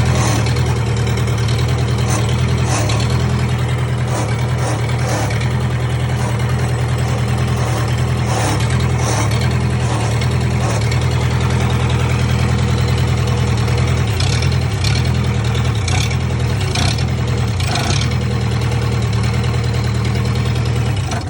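Four-cylinder Kubota diesel engine in a 1998 Gehl skid steer running steadily at idle, with a few short clicks now and then. The engine has just been got running after a fuel pump rebuild.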